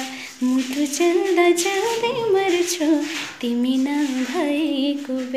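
A woman singing unaccompanied, a slow folk-style melody of long held notes that rise and fall. The singing cuts off abruptly at the end.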